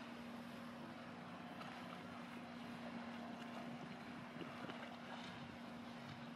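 Faint waterfront ambience: a steady low hum under a soft hiss of wind and distant noise.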